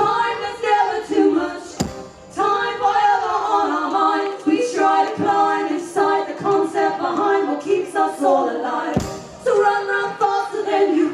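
Voices singing a wordless melodic refrain, largely unaccompanied, with a few sharp knocks.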